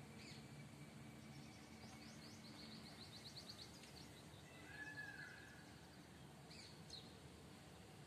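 Faint outdoor ambience with small birds chirping: a quick trill of rapid chirps about two to three seconds in, a short whistled note midway, and a few scattered chirps near the end, over a faint low hum.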